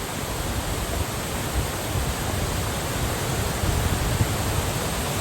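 Steady rushing of water, with an uneven low rumble underneath.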